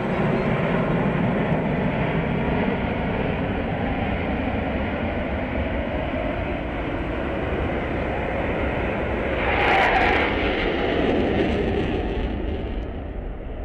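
Jet engine noise from F/A-18 Hornets flying in a four-ship diamond formation, a steady rumble that swells louder for a moment about ten seconds in and eases slightly near the end.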